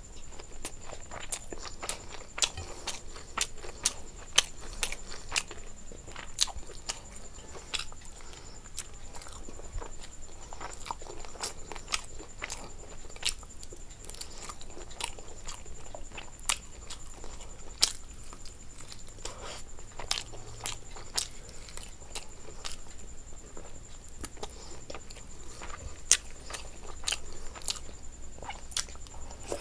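Close-miked eating: irregular crisp crunches and wet mouth clicks of food being bitten and chewed, a few every second, over a faint steady high whine.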